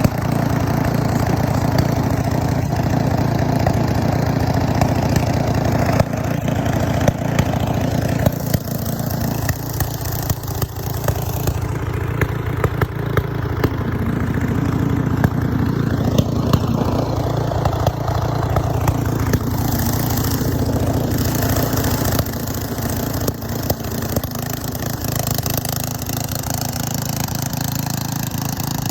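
An engine running steadily at idle, with a constant low hum.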